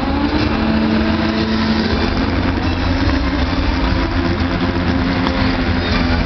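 Stunt motorcycle engine held at high revs, one steady buzzing note that wavers slightly in pitch, over the rumble of other stunt-vehicle engines.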